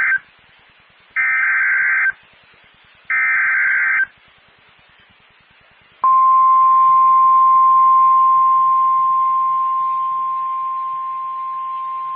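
Emergency Alert System SAME header for a fire warning: the end of one burst and two further bursts of warbling data tones, each about a second long with a second of silence between. About six seconds in, the steady single-pitch 1050 Hz NOAA Weather Radio warning alarm tone starts and holds on, easing down slightly after about eight seconds.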